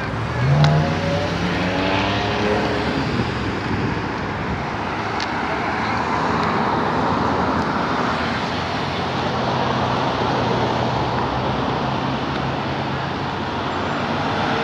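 Road traffic passing on a busy multi-lane street: steady tyre and engine noise. In the first few seconds one vehicle's engine rises in pitch as it accelerates away.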